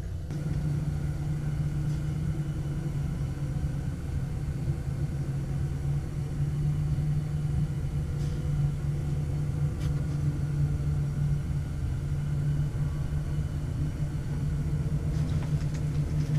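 Steady low hum of a running motor or engine, with a couple of faint clicks in the middle.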